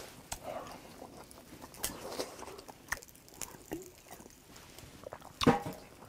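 Close-miked chewing and mouth sounds of a man eating a grilled oyster, with scattered small clicks and a louder burst about five and a half seconds in.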